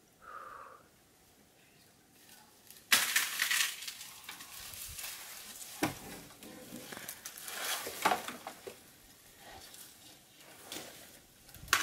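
African elephant browsing, its trunk pulling at a leafy tree: rustling and crackling leaves with sharp snaps of twigs breaking, several times over.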